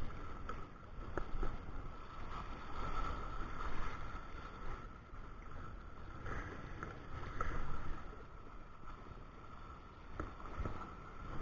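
Low, uneven rumble of wind on the microphone, with a few soft knocks and a faint steady high tone running underneath.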